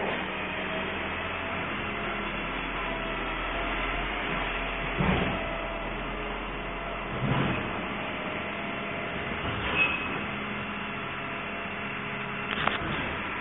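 Refuse collection truck running steadily with a low mechanical drone, broken by a few sharp knocks and clanks.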